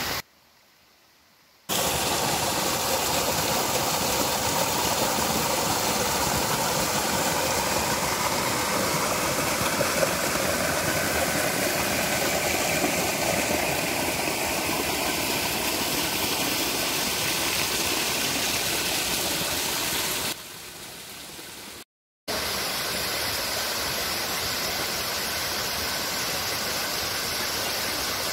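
Steady rush of a small stream cascading over rocks. It starts after a short quiet gap, dips and cuts out briefly about twenty seconds in, then carries on.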